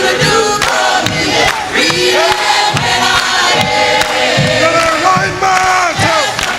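Music with several voices singing together, choir-like, throughout.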